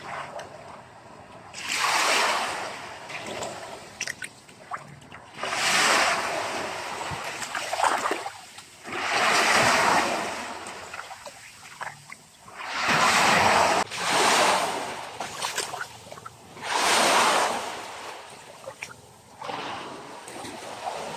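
Ocean waves breaking on a beach: about six rushes of surf, each swelling up and dying away, a few seconds apart.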